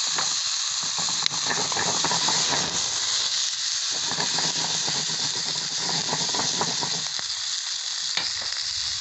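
Burger patties frying in a pan over a campfire: a steady sizzling hiss with irregular crackling and spattering, which eases briefly about three and a half seconds in and thins out near the end.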